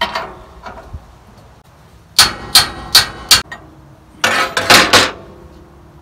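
Hammer striking a wrench on a circle sawmill's arbor nut to tighten the blade: four sharp, ringing metal blows about a third of a second apart, then a quicker cluster of clanks a second later.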